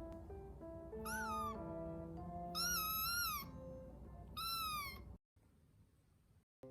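Young kitten meowing three times, high-pitched calls each under a second long, the middle one the longest, over background music. The sound cuts out suddenly about five seconds in.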